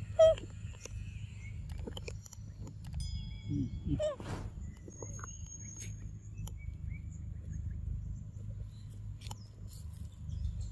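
Outdoor ambience with a steady low rumble and scattered short, high bird chirps and whistles. Two brief pitched calls stand out, the loudest just after the start and a rising one about four seconds in.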